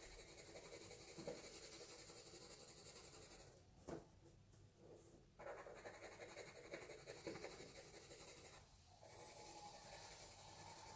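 Faint scratching of a pencil shading on paper in quick small strokes, with a pause about four seconds in and a brief one near the end.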